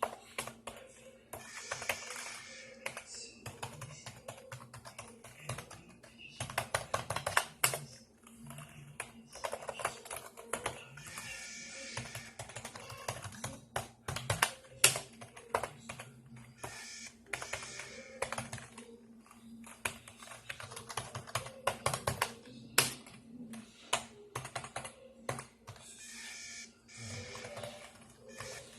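A computer making a strange noise: irregular runs of rapid clicking and chattering, each lasting a second or a few, over a steady low hum.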